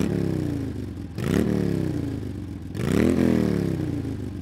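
A pulsing, engine-like whine revved three times, each rev jumping up quickly and sinking back over about a second, about a second and a half apart, over a steady low hum.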